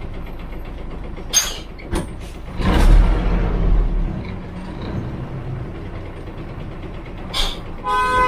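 Cabin of a Yangtze River front-engine city bus under way, the engine running under clicks and creaks. A loud hiss of air with a low rumble comes about three seconds in, and another short hiss near the end, followed by a pitched tone.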